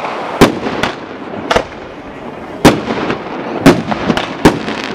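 Aerial fireworks bursting overhead: a string of sharp bangs, about seven in under five seconds at uneven spacing, over a continuous background of noise.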